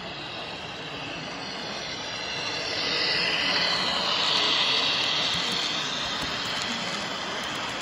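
Model diesel locomotive and its hopper cars running past close by: a steady running noise that swells as the locomotive draws level about three seconds in, then eases off as the cars roll by.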